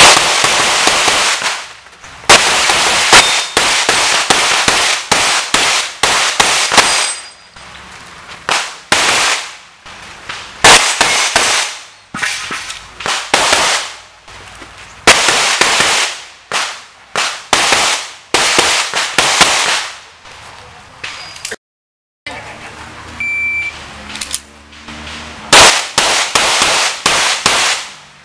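Strings of rapid handgun shots, each sharp crack followed by a short echo, with gaps between the strings. About two thirds of the way through, the sound cuts out for a moment; then a short high beep of a shot timer starts a last fast string of shots near the end.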